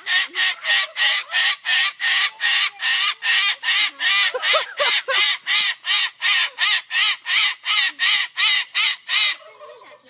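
Moluccan (salmon-crested) cockatoo screeching over and over, about three harsh calls a second in a steady rhythm, stopping shortly before the end.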